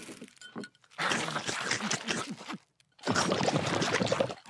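Cartoon sound effect of dry cereal pouring out of a box and being gobbled down. It comes in two noisy, rattling bursts of about a second and a half each, with a short break between.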